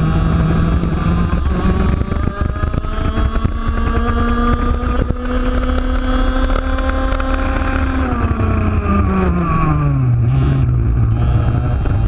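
A 125cc two-stroke TaG kart engine heard from onboard. Its revs climb steadily as the kart accelerates down a straight, then drop away about eight seconds in as the driver lifts off for the next corner, and it settles at low revs.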